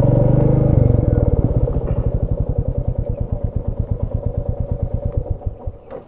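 Motorcycle engine running at idle with an even, pulsing beat. It is loudest at first and fades away shortly before the end.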